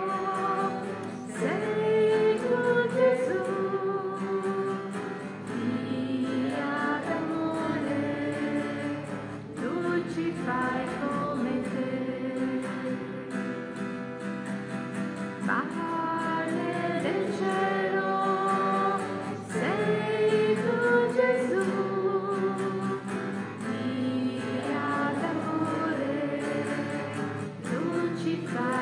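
A hymn sung by voices over instrumental accompaniment, a slow melody with vibrato on the held notes.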